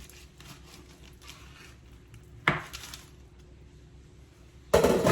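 Kitchen knife cutting a pork butt into chunks and knocking on the cutting board: faint scraping, one sharp knock about two and a half seconds in, and a louder clatter near the end.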